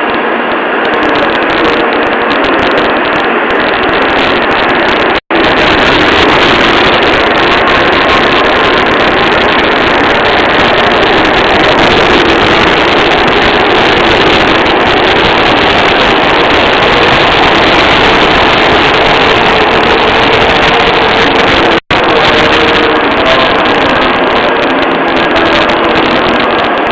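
Shinkansen 'Sakura' train running at speed: a loud, steady rushing roar of running and wind noise with a faint hum underneath, cut by two brief dropouts.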